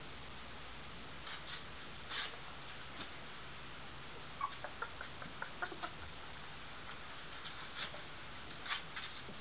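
Three-week-old Greater Swiss Mountain Dog puppies giving a quick run of short, high squeaks about halfway through, with a few soft scuffs of movement before and after.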